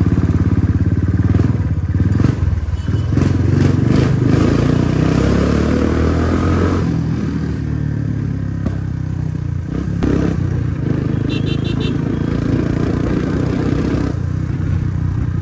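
Dirt bike engine running under way, revving up and easing off between about three and seven seconds in. A quick run of high beeps sounds about eleven seconds in.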